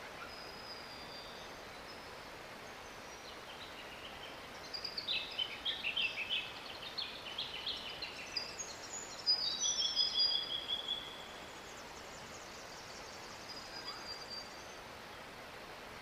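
Songbird calls: a flurry of short, high chirps at varied pitches begins about five seconds in, followed by a quick run of notes stepping down in pitch that ends in a longer held note. A steady faint hiss lies underneath.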